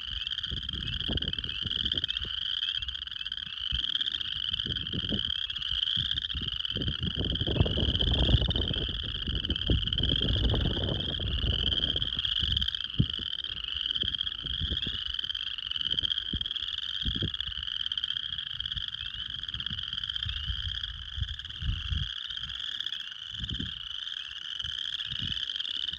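A dense chorus of many frogs calling at once, heard as a continuous mass of overlapping high, rapidly repeated calls with a lower layer of calls beneath. An irregular low rumble rises and falls underneath.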